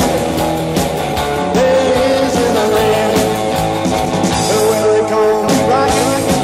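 Rock and roll music playing steadily, with singing.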